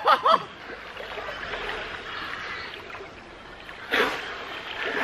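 Water splashing and sloshing around swimmers in a cold river, with a short vocal sound at the start and a louder splash about four seconds in.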